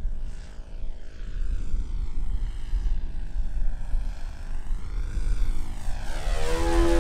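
Radio-controlled aerobatic model airplane's motor and propeller whining as it flies by on its landing approach, the pitch dipping and rising and the sound loudest near the end as the plane passes close.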